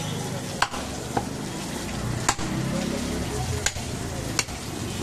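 A butcher's knife cutting and trimming raw goat meat and fat on a wooden stump chopping block: a wet, crackly slicing sound broken by about five sharp knocks of the blade against the wood.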